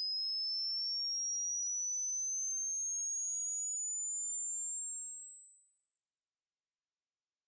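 Hearing-test sweep: a single high-pitched pure sine tone gliding slowly and smoothly upward at a steady loudness.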